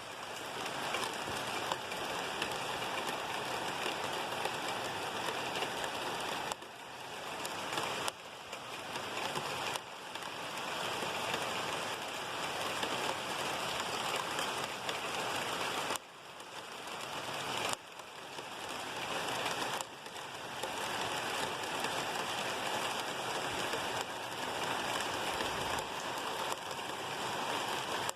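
Steady rain falling, an even hiss of drops on surfaces. Several times the level drops suddenly and then creeps back up over a second or two.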